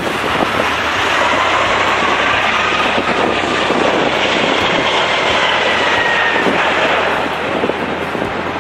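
Twin jet engines of an Airbus A330 on landing approach, passing close by: a loud steady rushing noise with a high whine that rises and then falls in pitch as it goes past. It eases off slightly near the end.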